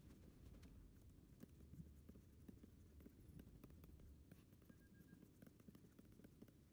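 Near silence: faint low room hum with scattered faint ticks.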